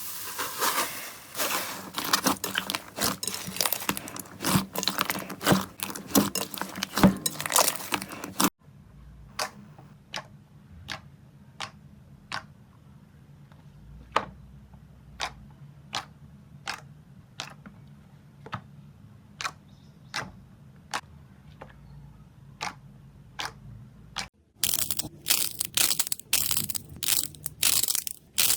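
Slime being worked by hand, crackling and popping. Dense crackling gives way after about eight seconds to single sharp pops roughly twice a second over a low hum. Dense crackling returns near the end.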